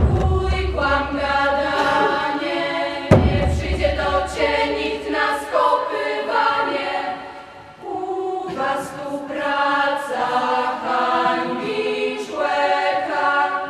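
A choir singing a chant-like song in harmony. A deep thud sounds at the very start and again about three seconds in, and the singing briefly drops away around seven to eight seconds before picking up again.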